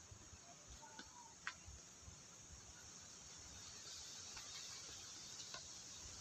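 Near silence: faint outdoor background hiss with a few soft ticks, the clearest about a second and a half in.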